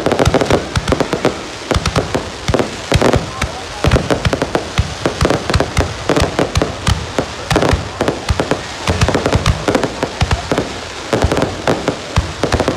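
A fireworks display firing a continuous barrage: rapid, overlapping bangs and crackles of shells bursting, many every second.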